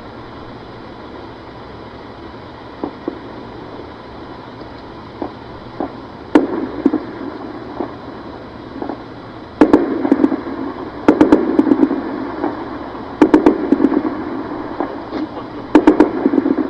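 Gunfire echoing: a few scattered single shots, then short bursts of rapid automatic fire, four bursts a couple of seconds apart.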